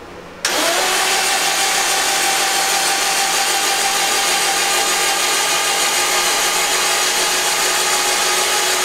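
Starter motor cranking the water-flooded Subaru WRX STI's flat-four engine over without it firing: a steady whine that starts abruptly about half a second in. The engine is being spun on the starter to build full oil pressure after an oil change that flushed water from it.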